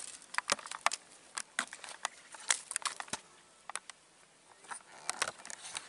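Irregular sharp clicks and crackles, with a quieter stretch in the middle, from hand handling of a freshly landed snakeskin gourami on the fishing line.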